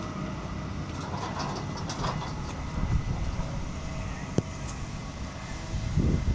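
Steady low rumble with scattered metal clanks and rattles as a wheeled cold-paint line-striping machine is lowered off a truck bed onto the road, with one sharp click about four seconds in. The rumble grows louder near the end as the machine reaches the road.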